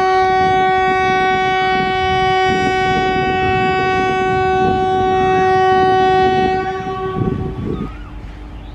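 WAP-4 electric locomotive's air horn sounding one long, steady blast that fades and stops about eight seconds in, over the low rumble and clatter of rail wagons.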